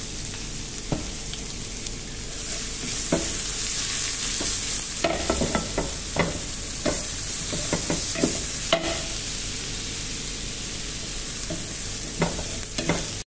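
Chopped garlic, ginger and dried red chillies sizzling in hot oil in a nonstick frying pan, growing louder about two seconds in. A wooden spatula scrapes and taps against the pan as they are stirred, most often in the middle stretch and again near the end.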